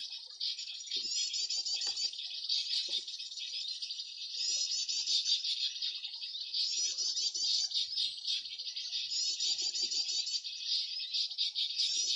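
Continuous high-pitched bird chatter and rapid trills, with louder phrases recurring every two seconds or so, from an MP3 lure playing Green Iora (cipoh jantung) calls to draw the birds in.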